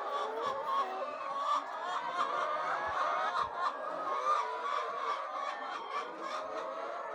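A flock of chickens clucking, many calls overlapping in a steady chorus.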